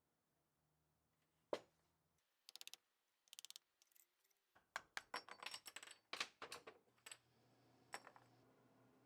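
Sharp metallic clicks and clinks from tools and small metal parts being handled: one loud click, two quick runs of rapid clicks, then a dense cluster of clinks.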